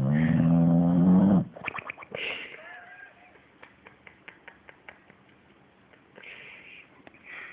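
A sleeping pet's cartoon-like snore: a loud, droning intake of breath that rises in pitch for about a second and a half. It is followed by a string of small clicks, a couple of faint whistles and soft puffs of breath.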